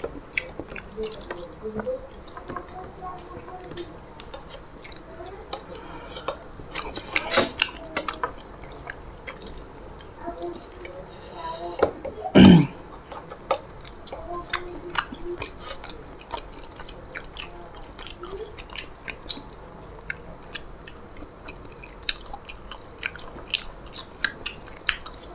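Close-up chewing and wet mouth sounds of people eating rice and fish curry by hand, with small sticky clicks and squelches as fingers mix rice on steel plates. A single louder thump about twelve seconds in.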